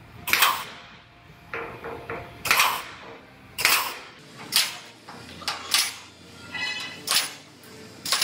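Pneumatic air punch punching plug-weld holes through the sheet-metal flange of a truck bedside, a sharp snap with each hole, about seven times roughly a second apart.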